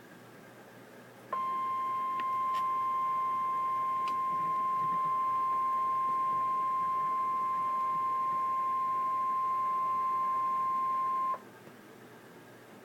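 NOAA Weather Radio warning alarm tone: a single steady beep at about 1050 Hz. It starts abruptly about a second in and holds for roughly ten seconds before cutting off. It signals that a warning message follows.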